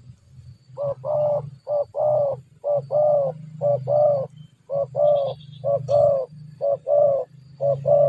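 Spotted dove cooing its bowing display call: a short note followed by a longer coo, the pair repeated eight times at about one a second.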